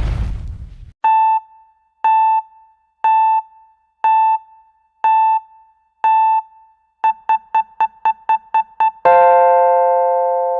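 Electronic countdown beeps: six short beeps a second apart, then eight quicker beeps, ending in a long held chord. A noisy hiss fades out in the first second.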